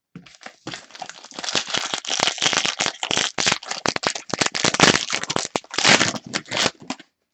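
Foil wrapper of a Prizm basketball card pack crinkling and tearing as it is opened, a dense run of crackles lasting several seconds.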